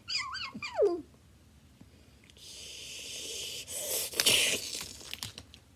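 A child making creature noises for a toy alien: a high, wavering screech that slides down in pitch in the first second, then a long hiss, and a short breathy burst about four seconds in.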